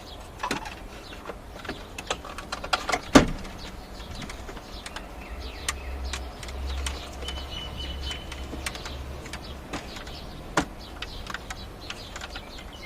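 Scattered clicks and knocks of plastic dashboard trim and wiring-harness connectors being handled and unplugged, with a sharp click about three seconds in and another near the end.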